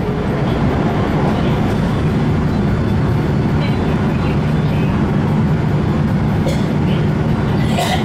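Inside a moving Special Rapid commuter electric train: steady running noise of wheels on rails with a low motor hum, and a couple of short sharp clicks near the end.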